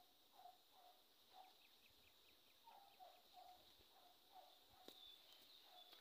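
Faint rural ambience: an animal calling in short, low, repeated notes, about two a second, over a steady thin high tone.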